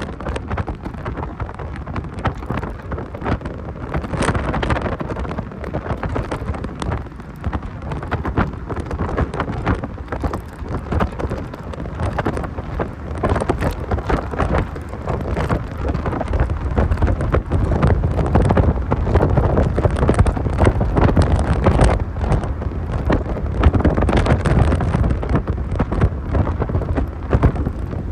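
Heavy wind buffeting and crackling on the microphone of a moving 1990 Mazda Miata, over a constant low rumble of the car on the road.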